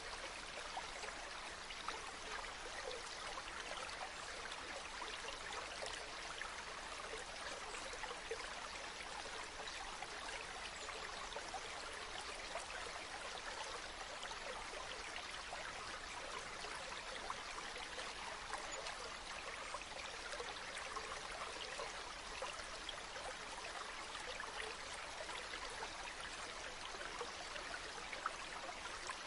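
River water flowing steadily: an even rush with small splashes running through it.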